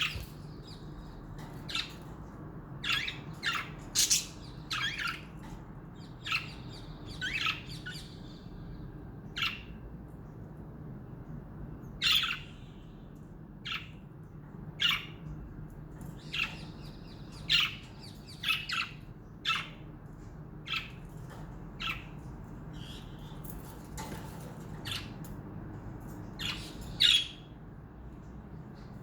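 Pet budgerigars giving short, sharp squawks and chirps, one or two every second or so at irregular intervals.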